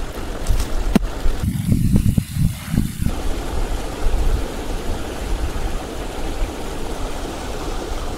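Steady outdoor background noise with a low rumble, a few sharp clicks and uneven low gusts in the first three seconds, then an even rushing hiss.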